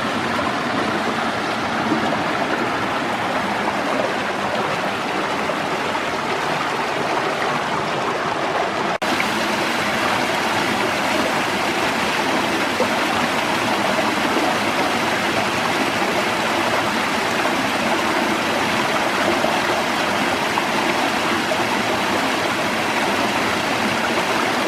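Steady rush of water tumbling over a small creek cascade. There is a brief dropout about nine seconds in, after which the rush sounds a little brighter.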